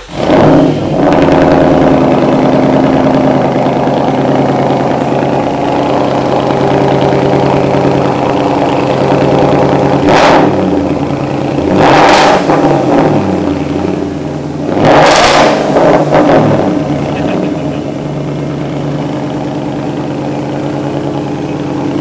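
Porsche Cayenne engine with its stock muffler deleted and side-exit exhausts, starting up about half a second in and idling. It blips through three short revs around the middle, then settles to a steady idle; quite a bit louder than stock.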